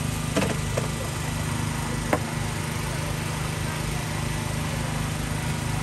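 Small portable petrol generator running with a steady, even hum. A few light clicks and knocks are heard over it in the first couple of seconds.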